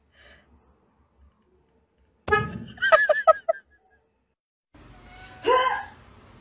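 A car horn sounds briefly, followed by a short burst of laughter, a couple of seconds in. Near the end there is a short vocal sound against room noise.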